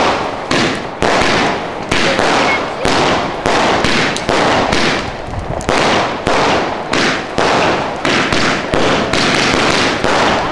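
Fireworks going off in a rapid, unbroken string of loud bangs, nearly two a second, each one dying away quickly before the next.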